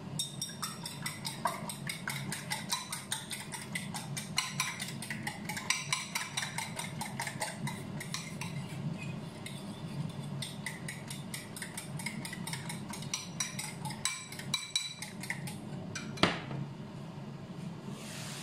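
Egg being beaten with a metal spoon in a small ceramic bowl: rapid, uneven clinking of metal against the bowl, over a steady low hum. The beating stops about 16 seconds in with one sharper clink.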